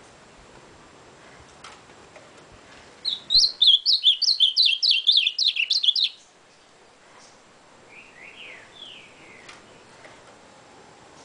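Male ultramarine grosbeak (azulão) singing one loud, fast phrase of about three seconds: a rapid string of high notes, several a second. A couple of seconds later come a few softer, lower falling notes.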